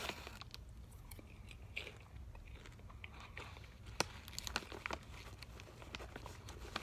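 A person chewing crunchy hot cheese popcorn chips: faint, irregular crunches with one sharper crunch about four seconds in.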